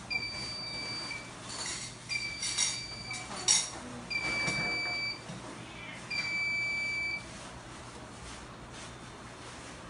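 Piezo alarm siren giving four steady, high-pitched beeps of about a second each, one every two seconds, then falling silent; a few knocks and rustles come between the beeps, the sharpest about three and a half seconds in.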